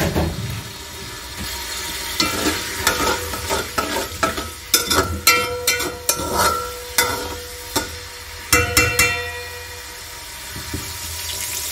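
Sliced onions sizzling in hot cooking oil in an aluminium pot while a metal spoon stirs them, scraping and knocking against the pot so that it rings. The clatter of the spoon stops about nine seconds in, leaving the steady sizzle.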